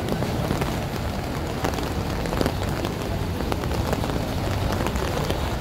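Steady rain falling on the street and pavement, many small drop ticks over a low, even rumble of city traffic.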